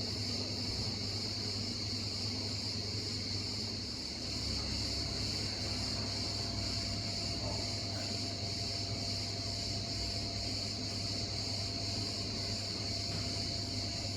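Steady high-pitched hiss over a low hum, unchanging throughout, with a faint steady tone in the middle.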